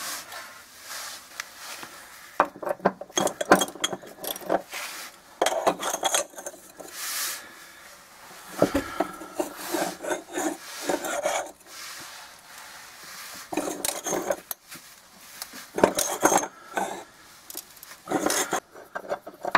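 A ratchet turning a socket on an extension bar to loosen a bolt in a truck frame bracket. The ratcheting comes in short bursts, with metal clinks and gaps between the strokes.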